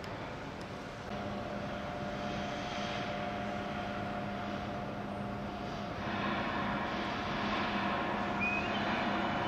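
Steady mechanical drone with a low and a mid hum, growing louder in two steps, with a high whine coming in near the end.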